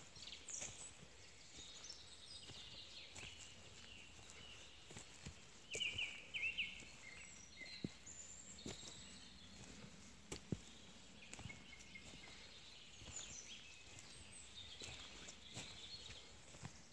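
Small birds chirping and singing in the forest canopy, short high calls coming in clusters, loudest about six seconds in. A few faint clicks of footsteps on the forest path, the sharpest about ten seconds in.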